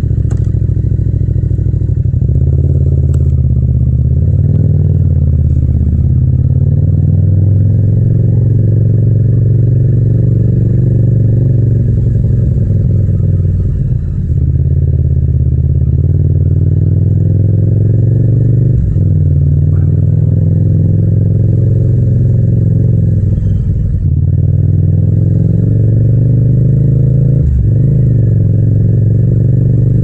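Yamaha MT-07 (FZ-07) 689 cc parallel-twin engine and exhaust running at low road speed, the pitch rising and falling gently with small throttle changes, with a brief dip about fourteen seconds in.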